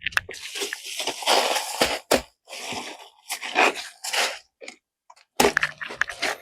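Foley horse-hoof sound being performed by hand: a run of irregular crunching, gritty strikes with a few sharper knocks.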